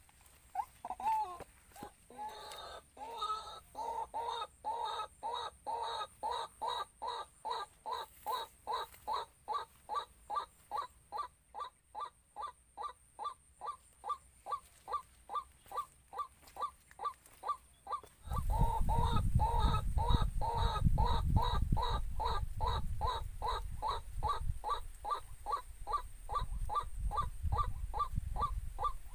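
White-breasted waterhen calling, a long monotonous series of short croaking notes, about two a second. About two-thirds of the way in a loud low rumbling noise joins under the calls.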